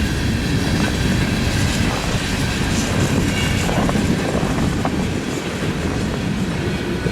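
Freight train cars rolling over the rails with a clickety-clack of wheels on rail joints, easing off slowly as the last cars go by.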